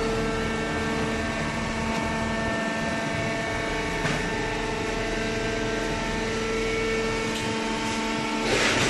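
Industrial cardboard baling machine running: a steady machine hum with several held tones over a noisy background, swelling into a louder hiss near the end.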